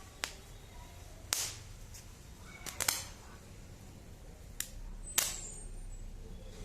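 Chatpat firecrackers going off in sharp, irregular cracks, about half a dozen, with the loudest about a second and a half in and about five seconds in.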